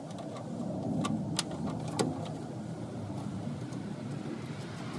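A steady low vehicle rumble, with a few sharp clicks between about one and two seconds in.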